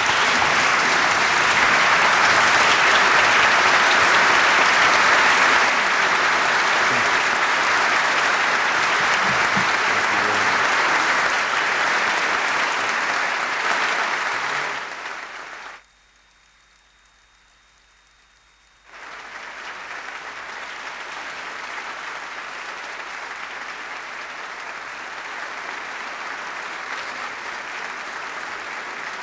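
A large audience applauding steadily. The applause cuts out completely for about three seconds past the middle, then comes back quieter and carries on.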